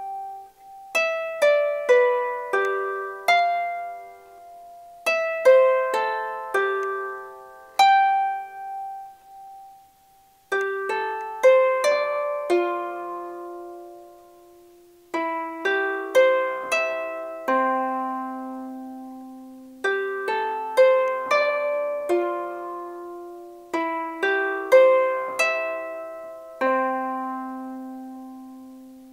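Small wooden harp played by a learner: a slow melody of single plucked notes and occasional chords in phrases, each note ringing and fading. There is a short gap about ten seconds in, and a low note is left to ring out near the end.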